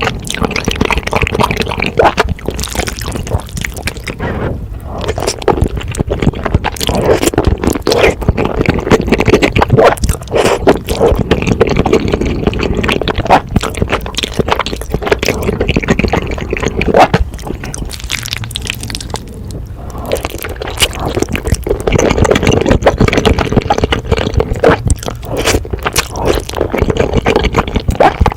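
Close-miked eating of spicy noodle soup: wet chewing and slurping with many small irregular clicks and scrapes.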